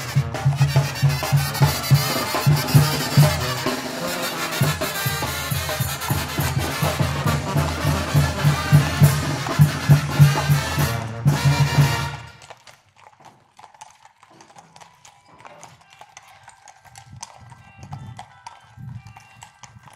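Music with a strong, pulsing bass beat that cuts off suddenly about twelve seconds in, leaving only faint sounds.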